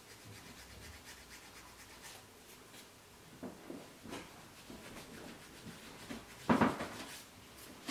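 Faint, irregular scratchy strokes of a nail file rubbed across the corners of a fingernail, with one brief louder bump about six and a half seconds in.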